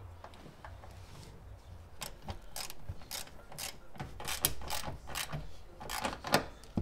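Hand ratchet clicking in short strokes as the bolt holding the amplifier's ground wire ring terminal is tightened to the car body, starting about two seconds in.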